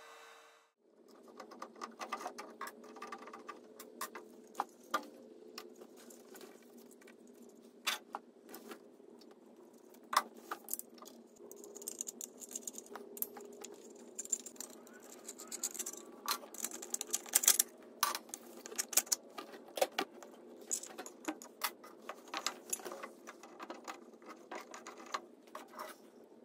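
Hand work on a desktop laser's exhaust fan: a screwdriver and small metal parts clicking and clinking irregularly as the stock 4-inch fan is unscrewed from the back panel and a duct hose clamp is fitted. A steady machine hum cuts off under a second in.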